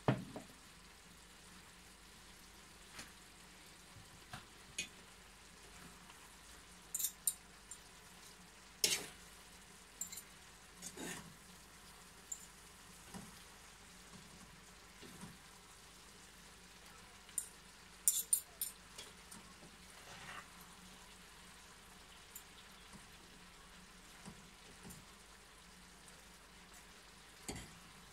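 A fork stirring and tossing noodles and vegetables in a frying pan, with scattered sharp metal clinks and scrapes against the pan over a faint steady sizzle of frying.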